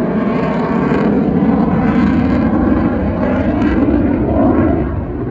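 Loud, steady jet noise from an F-22 Raptor's twin turbofan engines passing in flight, easing off slightly near the end.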